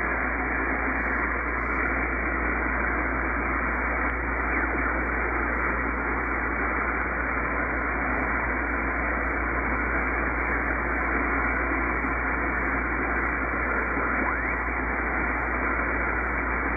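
CB radio receiver hiss with no station on the channel: a steady wash of static from the radio's speaker, cut off above the voice range, with a low hum underneath.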